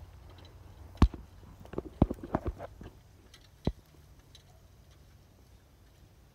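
A few sharp knocks and clatters: a loud one about a second in, a quick cluster around two seconds, and a single one near four seconds, over a faint low rumble.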